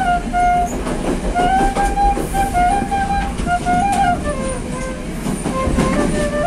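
Bamboo transverse flute playing a slow melody of held notes that step up and down, over the rumble and clatter of a moving train carriage.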